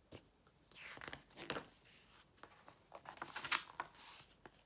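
Picture-book pages being turned and handled: faint paper rustling and crinkling with small clicks, loudest about a second and a half in and again about three and a half seconds in.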